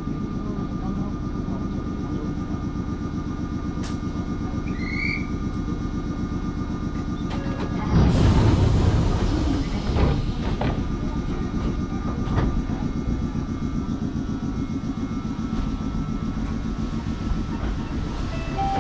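Choshi Electric Railway train running along the line, heard through an open carriage window: a steady wheel-and-track rumble with a faint even whine. About eight seconds in, a sudden louder rush of noise lasts about two seconds.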